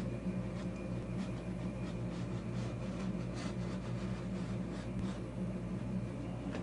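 X-Acto knife blade scoring drywall, a series of faint short scraping strokes, over a steady low hum.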